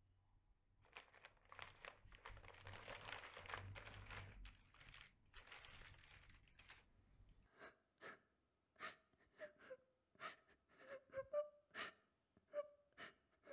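A crumpled bag rustles and crinkles for the first several seconds. Then a young woman sobs in short, gasping breaths, with whimpering catches of voice, about one to two a second.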